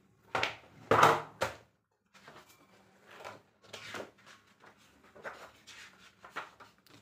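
Large spiral-bound sketchbook being handled: three loud knocks and rustles as it is moved and opened in the first second and a half, then softer, irregular rustling as its 120 GSM paper pages are leafed through.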